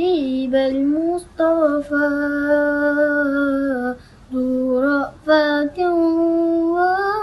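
A boy singing an Arabic devotional nasheed praising the Prophet, solo and unaccompanied, in long held notes with gliding ornaments and short breaths between phrases.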